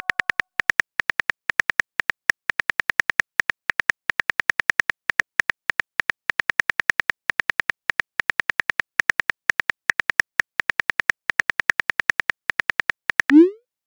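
Phone keyboard typing clicks from a texting app's sound effect: short, even taps, several a second, as a message is typed out letter by letter. Near the end comes one short rising swoosh, the message-send sound.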